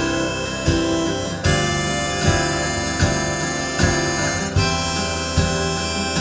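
Live instrumental music with no singing: a harmonica playing held notes over strummed acoustic guitar, with a steady accented beat a little slower than one a second.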